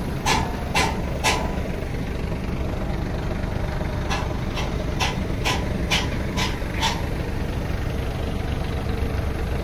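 Vehicle engine idling steadily, over which a run of short sharp sounds repeats about twice a second: three near the start, then seven more from about four seconds in.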